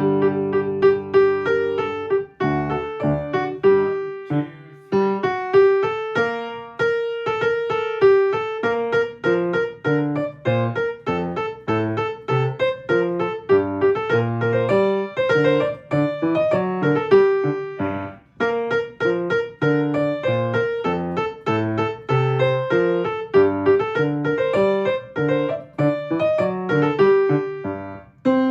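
Piano playing a choir's soprano line as a melody over lower chord and bass notes, at a slow practice tempo.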